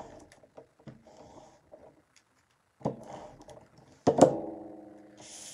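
Cardstock being handled on a desk: a tool rubbing and pressing over a paper piece, and the sheet scraping as it is moved. About four seconds in comes a sharp knock, the loudest sound, with a ringing tone that dies away over a second or so.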